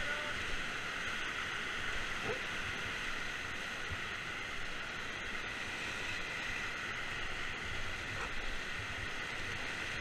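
Whitewater rapids rushing steadily around an inflatable raft.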